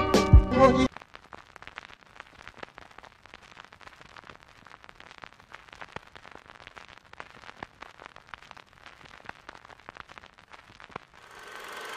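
Guitar music ending abruptly about a second in, after two deep bass hits. Then faint, irregular crackling and popping, like a record's surface noise. A noisy hum rises near the end.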